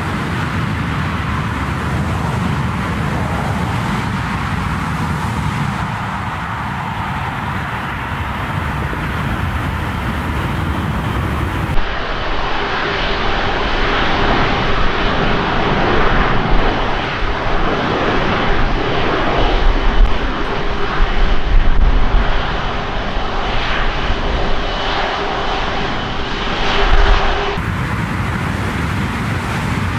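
Jet airliner engines: a low steady rumble at first. Then, after a cut partway through, a Boeing 737's engines at takeoff power, with a steady hum under the noise, growing loudest a little past two thirds of the way. Near the end it cuts again to another jet climbing out.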